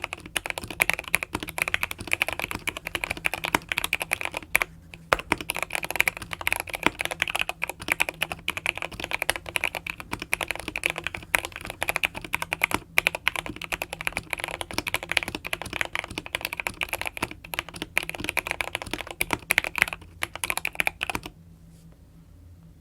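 Typing on a NextTime 75 mechanical keyboard with Gateron Yellow linear switches, tape-modded and PE-foam-modded: a fast, dense run of keystroke clacks with a short pause about five seconds in. The typing stops about a second and a half before the end.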